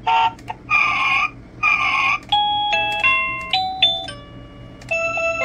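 Plug-in receiver of an AIDA wireless doorbell playing its electronic chimes. First come a few short buzzy ring tones; then, about two seconds in, a tune of plain stepping notes, and another tune starts near the end.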